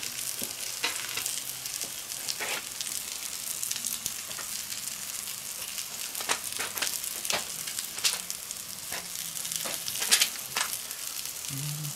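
Burger patties topped with pineapple rings sizzling steadily on a cast-iron griddle plate over a charcoal kettle grill, with scattered sharp clicks and ticks through the sizzle.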